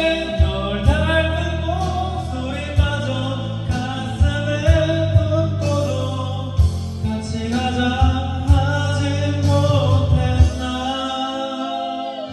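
A song: a sung vocal line with drawn-out notes over a bass line and drum hits, fading down near the end.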